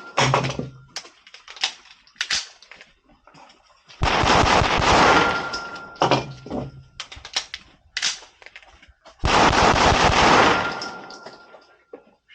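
Pistol gunfire on an outdoor range. Two loud shots, about five seconds apart, each leave a long noisy tail lasting a few seconds, with several sharper single cracks in between.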